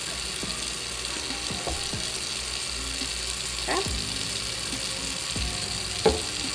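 Kitchen faucet running steadily into a sink while the wet brush bar of a Dyson V15 is rubbed and wrung under the stream, giving a few short squeaks. Near the end there is a sharp knock as the brush bar is set down on the countertop.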